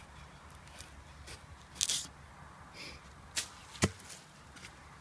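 A sharp wooden stick being hammered down inside a bamboo tube to break out its inner node: a few irregular knocks, the sharpest about four seconds in.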